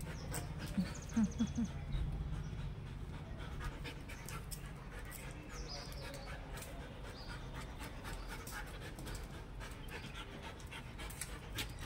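German Shepherd dog panting, with three short low sounds about a second in.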